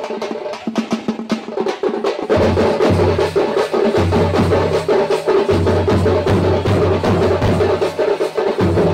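Festival drums beaten fast and hard, a dense rapid run of strokes, over a steady held tone.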